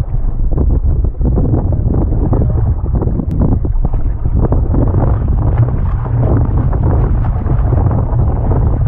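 Strong gusty wind buffeting the microphone of a camera aboard a sailboat, a loud, continuous low rumble with constant jagged gusts.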